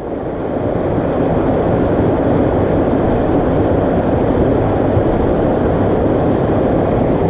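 Wind gusting over the camera's microphone: a steady rushing noise that builds over the first second and then holds.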